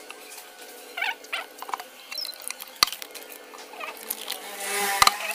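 Small clicks, taps and squeaks of plastic cups and a paint tin being handled while paint is decanted, with a sharp tap about three seconds in and another near the end.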